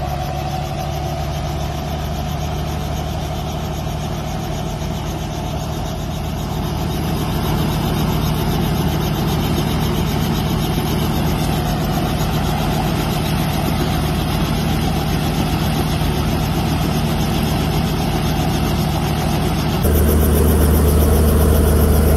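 Light helicopter running on the ground at idle: a steady engine and rotor sound that grows louder as it is approached. About twenty seconds in, the sound jumps to a louder, deeper level.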